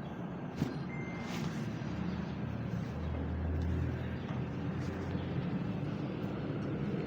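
Low engine rumble of a motor vehicle, strongest about three to four seconds in, with a single sharp click just over half a second in.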